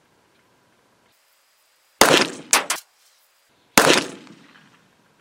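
.45 ACP pistol fired twice, about two seconds in and again just before four seconds in, each shot a sharp crack with a fading tail. A weaker sharp crack comes about half a second after the first shot.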